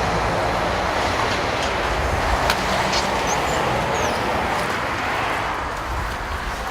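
Steady road traffic noise from a busy main road, with a single sharp click about two and a half seconds in.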